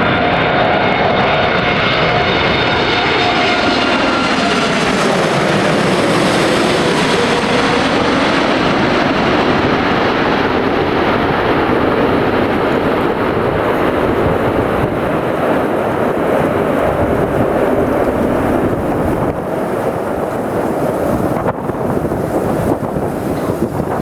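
Boeing 747's four jet engines as the airliner passes close by: an engine whine that falls in pitch over the first few seconds, then steady jet noise. Wind buffets the microphone near the end.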